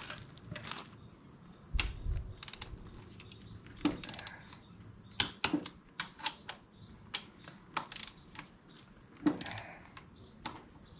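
Hand tools clicking at uneven intervals: a ratcheting torque wrench worked on the motorcycle's front axle bolts, with sharp metallic clicks and a low thump about two seconds in.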